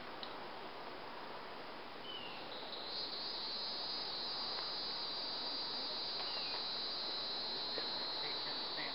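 A steady high-pitched chorus of insects, growing louder about three seconds in, over a faint background hiss.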